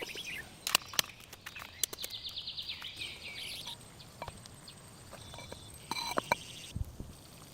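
A bird chirping, including a rapid trill of chirps in the middle, mixed with several sharp clicks and knocks.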